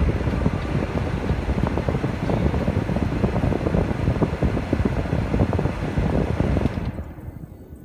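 Wind and road noise in a moving car's cabin, picked up by a phone microphone: a loud rushing with gusty buffeting that drops away sharply about seven seconds in.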